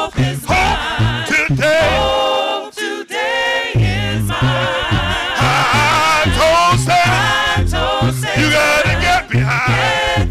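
Gospel praise singing: several voices sing with heavy vibrato over a live band's steady bass and drum beat. The bass and beat drop out for about a second, two and a half seconds in, then come back.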